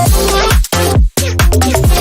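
Background pop music with a steady beat and repeated sliding bass notes. It cuts out briefly twice, about two-thirds of a second and a second in.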